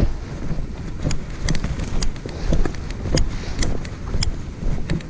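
Hurried footsteps and rustling through grass on a dirt path, with irregular sharp clicks and knocks over a steady low rumble of wind and handling noise on a body-worn camera.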